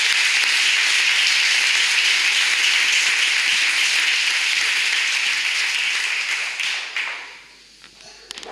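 Audience applauding steadily, the clapping dying away about seven seconds in, with a few faint clicks near the end.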